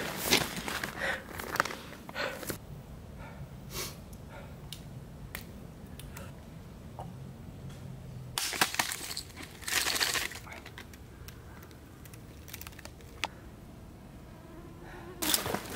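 A hiker's footsteps on a trail in short runs, with rustling, separated by quieter pauses in which only a faint low hum remains.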